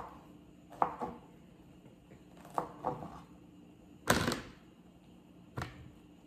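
Several separate knocks and clatters of things being handled on a kitchen counter. The loudest is a short clatter about four seconds in.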